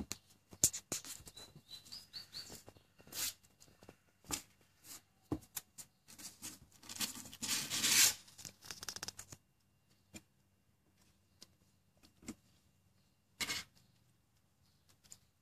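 Kittens scuffling and wrestling over their mother: irregular scratchy rustles and clicks of paws and claws on tile and cardboard, with a dense stretch of rustling about seven to nine seconds in, then only scattered taps.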